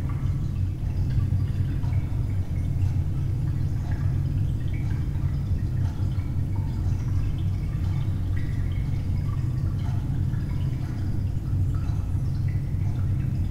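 Steady low rumbling drone with scattered short high plinks of dripping water.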